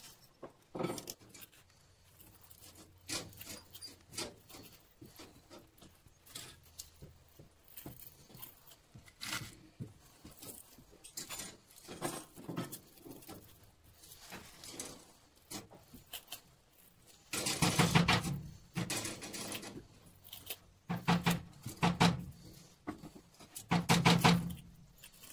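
Scattered small clicks and scrapes of metal parts and hand tools being handled while copper wire is stripped from a scrap motor part. Three louder sounds of unclear source come in the last third.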